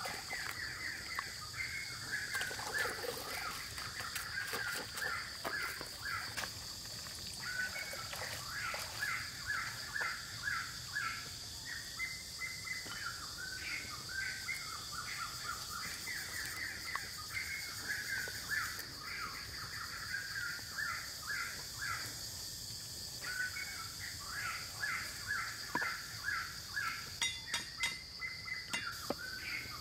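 Birds chirping over and over, with a steady high-pitched insect drone behind them. Near the end come a few sharp knocks of a cleaver chopping on a wooden block.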